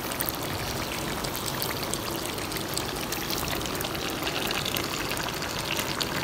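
Chicken masala sizzling steadily in a cooking pot over low heat, a continuous hiss with faint crackles, as fried potato sticks sit on top of it.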